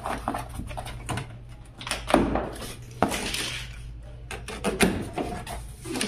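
Irregular knocks, taps and scraping rustles of a refrigerator's cardboard and plastic packaging being handled during unboxing, over a low steady hum.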